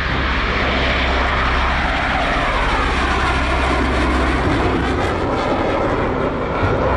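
Jet engine noise of two McDonnell Douglas F-4 Phantom II fighters flying past, loud and steady, its pitch sweeping down and back up around the middle of the pass.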